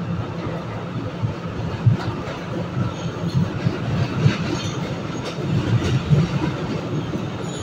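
New York City Subway A train running through a tunnel, heard from inside the front car: a steady rumble of steel wheels on the rails with a few sharper clacks over rail joints.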